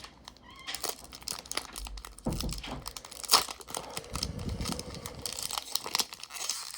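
Foil wrapper of a Pokémon trading-card booster pack crinkling and rustling as it is handled, with irregular crackles and one sharp crackle about three seconds in.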